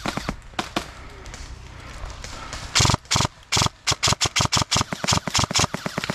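Airsoft guns firing: a few single shots near the start, then rapid shots from about three seconds in, several a second, until the end.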